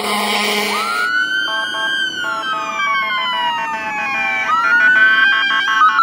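Emergency vehicle siren. It opens with a second of steady blaring tone, then wails, rising, falling slowly over several seconds and rising again near the end, with a second stepped pattern of tones sounding underneath.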